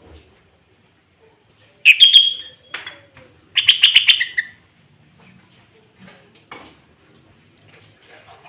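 Sooty-headed bulbul (kutilang) singing two loud, clear phrases about two and four seconds in, the second a fast run of notes, then only faint chirps.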